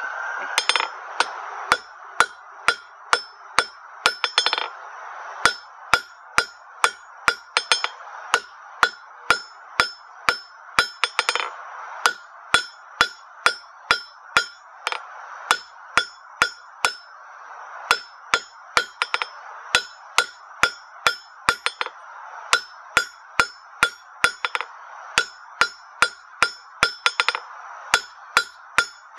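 Hand hammer striking a red-hot half-inch square steel bar on an anvil in a steady run of sharp blows, about two a second, with a few short pauses, as the bar is forged round. A steady hiss runs underneath.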